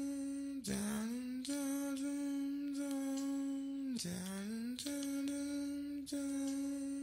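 Soft intro music: a sustained tone with many overtones, held on one pitch, that swoops down and back up twice, about a second in and again about four seconds in.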